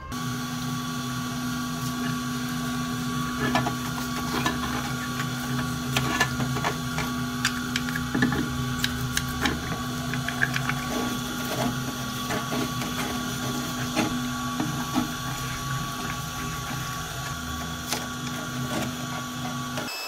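Brush scrubbing rusty metal bell parts in a cleaning tank: irregular scrapes and clicks over a steady machine hum that stops suddenly at the end.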